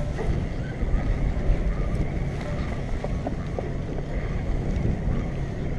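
Steady low rumble of wind buffeting the microphone, mixed with boat and water noise on choppy sea.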